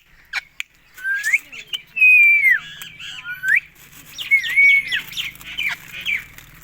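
Indian ringneck parakeet calling: a run of loud whistled calls and squawks that sweep up and down in pitch, beginning about a second in, with a few short clicks between them.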